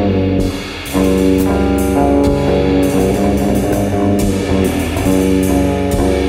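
Instrumental section of a rock song: guitar and bass over a drum kit with repeated cymbal strikes. The music dips briefly under a second in, then comes back in full.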